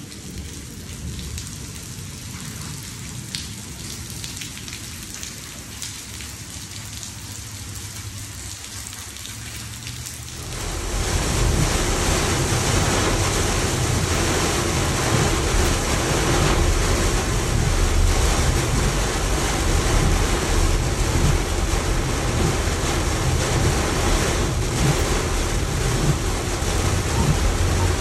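Heavy rain falling on a screened pool patio, a steady hiss. About ten seconds in it cuts suddenly to a much louder sound: heavy rain hitting a car, with road noise, heard from inside the car as it drives.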